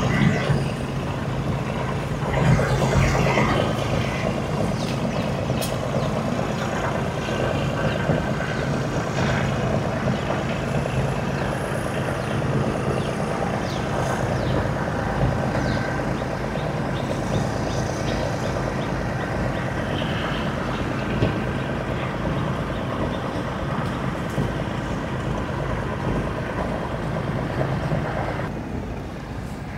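An engine running steadily under a wash of noise, holding an even level until it falls away near the end.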